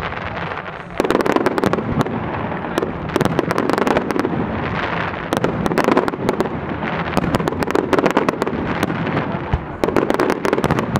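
Fireworks display: aerial shells bursting and ground fountains going off, a dense stream of rapid pops and crackles that steps up in loudness about a second in.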